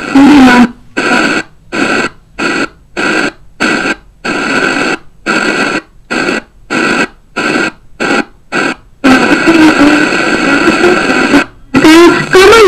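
FM tuner static as a Sony XDR-F1HD steps up through empty channels: short bursts of hiss, about two a second, each cut off by a brief mute as the tuner retunes. It then settles into a few seconds of steady hiss, drops out briefly, and a weak distant station's audio begins to come through the noise near the end.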